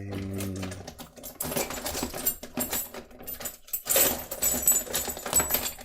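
Metal padlocks clattering and clinking together as a hand rummages through a bucket full of them: a run of small clicks that grows louder and denser about four seconds in.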